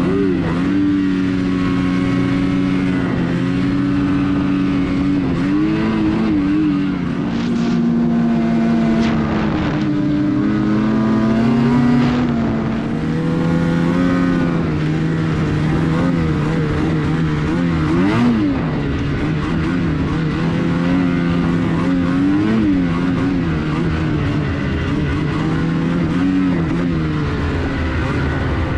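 Snowmobile engine running under way, its pitch rising and falling with the throttle. The machine is new and still in its break-in period.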